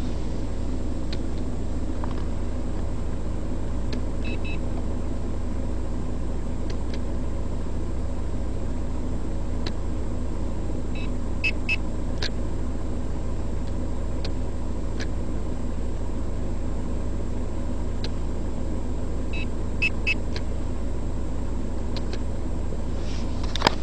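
Steady low rumble of a BMW 1 Series heard from inside the cabin, with a few light clicks as the cruise-control stalk is worked. Three times there is a brief pair of faint high beeps.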